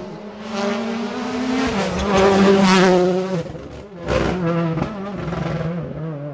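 Rally cars' turbocharged four-cylinder engines running hard: revs rise, then a loud full-throttle stretch with a rough, noisy edge. About four seconds in comes a sudden loud burst, then an engine revving up and down through gear and throttle changes.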